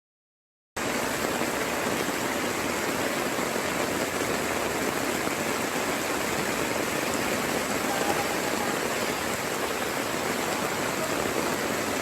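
Steady rushing noise of water, with no rhythm or distinct events, starting just under a second in after a brief silence.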